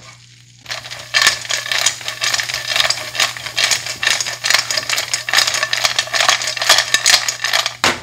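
Spotted babylon sea snails frying in their shells in a hot pan, sizzling and rattling as the pan is tossed, a dense crackling clatter that starts about a second in and stops just before the end.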